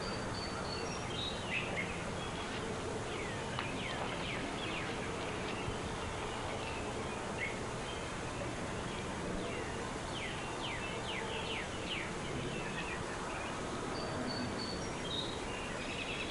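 Outdoor ambience: a steady hiss of background noise with scattered short, falling chirps, clustered a few seconds in and again past the middle.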